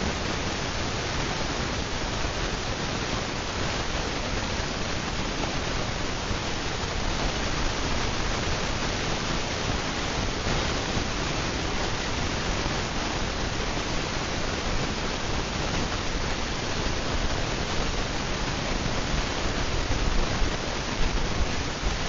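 A Hunter low-profile ceiling fan running fast, heard as a steady, even whoosh of moving air.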